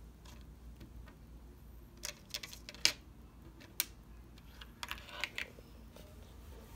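Small heat sinks clicking as they are taken from a clear plastic case and set down on a table one by one, with light plastic clatter from the case: a scattered series of short sharp clicks, in small clusters.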